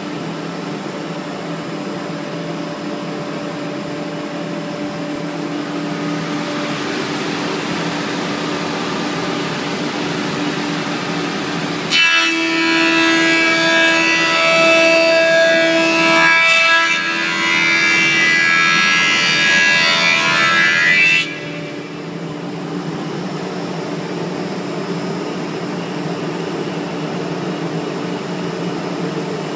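Industrial edge-processing machine running with a steady hum. Partway through, a louder, harsher, high-pitched machining noise lasts about nine seconds as a compact laminate panel passes through its edge cutters, then cuts off suddenly and the steady running continues.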